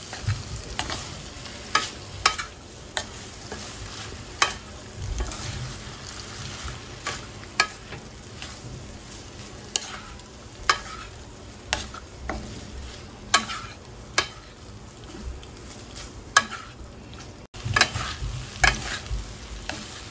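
Wooden spatula stirring and tossing egg noodles with vegetables in a hot stainless steel pan: irregular knocks and scrapes of the spatula against the pan over a steady sizzle of frying.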